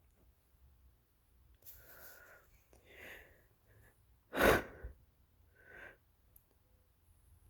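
A person's deliberately induced sneeze. A couple of breathy inhales build up, then one sharp, loud sneeze comes about four and a half seconds in, followed by a short breath.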